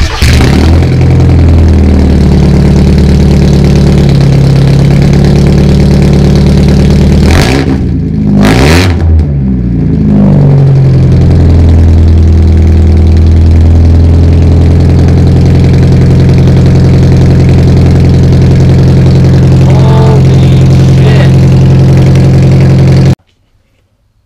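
Mazda Miata four-cylinder engine running through a freshly welded 2.5-inch straight-pipe exhaust on its first test fire, very loud. It idles steadily, is revved briefly about eight seconds in and again lightly near twenty seconds, then cuts off suddenly near the end.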